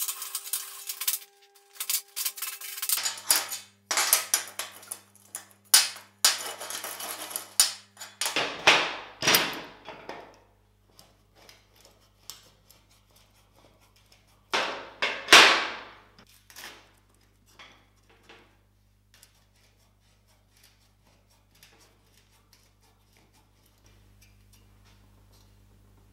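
Hand wire brush scrubbing a steel welding table in quick back-and-forth strokes, followed by two louder sweeping scrapes and scattered light metal clicks as screw clamps are set and tightened onto square steel tubing.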